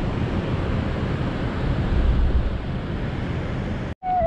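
Wind rumbling on the camera microphone, a steady rushing noise heaviest in the low end, which cuts off abruptly about four seconds in; right after it a brief, falling, high voice-like call is heard.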